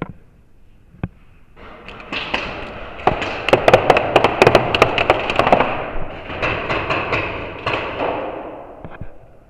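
Paintball markers firing in a rapid barrage: a dense run of sharp pops that starts about a second and a half in, is loudest in the middle and tails off near the end, with a single pop about a second in.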